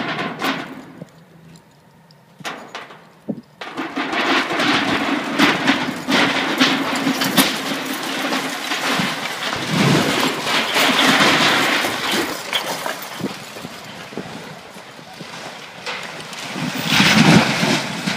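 Old concrete silo cracking and crumbling as it gives way, a long rumbling stretch full of cracks. It ends in a loud crash near the end as it hits the ground.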